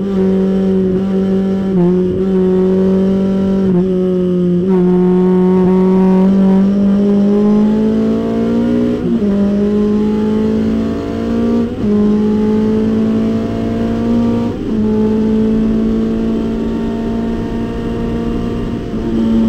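Datsun 510 race car's engine heard from inside the cockpit, running hard in fifth gear under full throttle, its note climbing slowly as speed builds. The note dips briefly a few times along the way.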